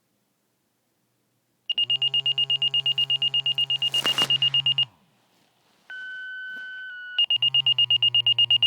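Motorola Minitor fire pager being activated by a test page. Rapid high-pitched beeping, about ten beeps a second, starts about two seconds in and lasts about three seconds. After a short gap come two steady sequential page tones over about a second, the first stepping into the second. The pager's rapid beeping alert then starts again.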